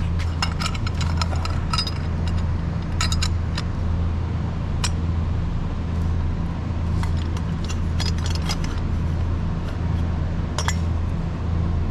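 Light metallic clinks and taps, irregular and in small clusters, as a motorcycle's Arrow exhaust header pipe, its gasket and mounting nuts are handled and fitted to the exhaust port, over a steady low hum.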